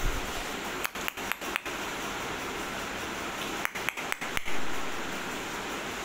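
Steady background hiss that cuts out briefly a few times, around one second and again around four seconds in; no parrot calls are heard.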